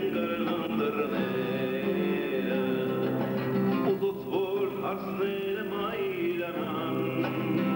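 Live acoustic music: several acoustic guitars playing together, with a man singing.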